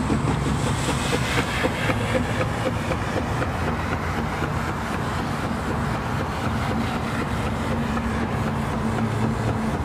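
Steady low engine drone, like a motor idling, with no clear changes.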